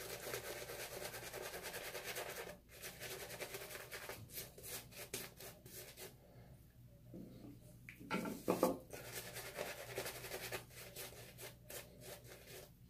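Shaving brush scrubbing lather into stubble on a face: fast, rough rubbing of bristles against whiskers, pausing for a moment a little past halfway and then starting again.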